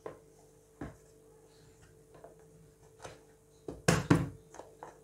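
Scattered knocks and taps on an upturned aluminium cake tin resting on a plastic plate: the tin is turned over and its bottom patted by hand to release the baked cake. A single knock about a second in, then a quick cluster of knocks near the end.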